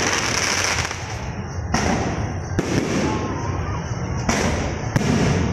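Fireworks exploding: about four sharp bangs, each dying away, over a continuous noisy crackle.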